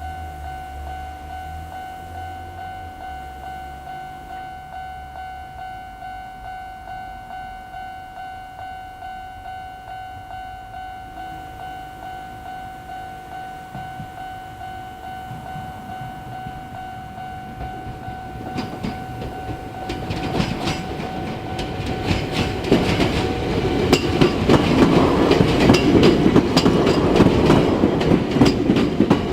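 Japanese railway level-crossing alarm of the older type ringing a steady, repeating electronic tone. About two-thirds of the way through, a Chichibu Railway 7000-series electric train approaches and passes, its wheels clattering over the rail joints and growing loud enough to cover the alarm.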